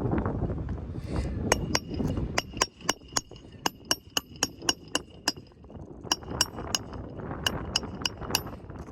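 Hammer driving roofing nails, quick ringing metal-on-metal strikes about four a second in two runs with a short pause between.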